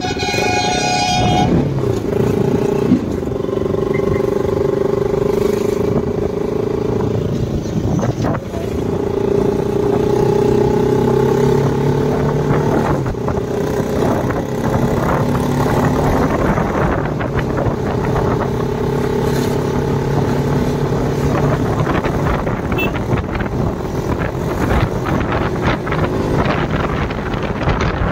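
Motorcycle engine running on the move, its pitch slowly rising and falling with the throttle.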